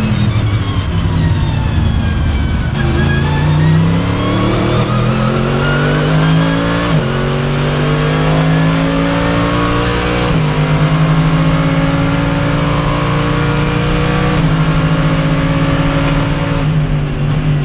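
Mercedes-Benz SLS AMG GT3's 6.2-litre V8 heard from inside the cockpit: revs falling for the first few seconds, then climbing under acceleration with three upshifts, about seven, ten and fourteen and a half seconds in.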